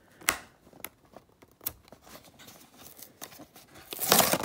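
Clear plastic blister pack crackling with scattered sharp clicks as it is pried away from its cardboard backing card, then a louder ripping tear about four seconds in.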